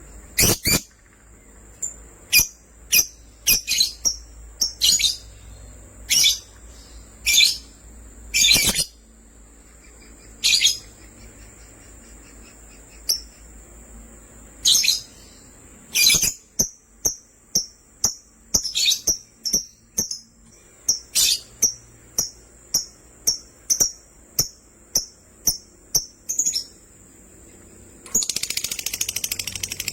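Lovebirds chirping: sharp, high chirps, scattered at first, then a quick, even run of about two a second. Near the end it turns into a dense, rapid, high chatter.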